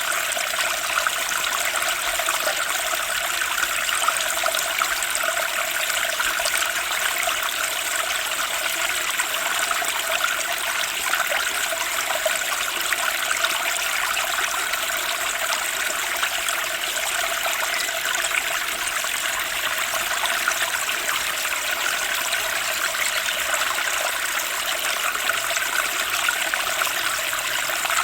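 Fast-flowing stream of water rushing and splashing over rocks, a steady churning that stays even throughout.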